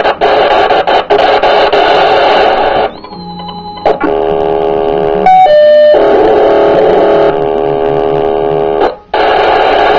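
Unidentified signal on 158.100 MHz heard through a Yaesu FT-1900 FM radio's speaker: a harsh buzzing noise carrying stacks of steady tones whose pattern switches every second or so. It drops out briefly about three seconds in and again near the end, and a couple of short high beeps sound just past halfway.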